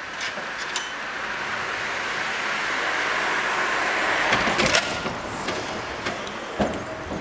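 Gotha tramcar easing up to its trailer for coupling: a rushing running noise builds, then metal clanks and clicks from the couplers come about four and a half seconds in, with one more clank near the end.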